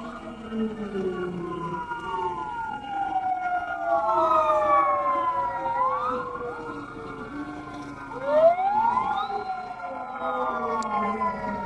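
Several fire-truck sirens wailing at once, their pitches sweeping slowly up and down out of step with one another over a steady held tone. About eight seconds in one siren winds up steeply, the loudest moment.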